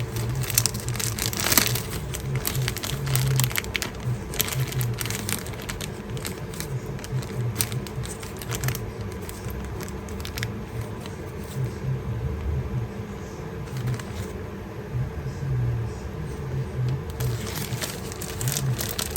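Handling noise from small jewellery pieces being picked up and set down: many short clicks and light crinkling, thicker in the first half and again near the end.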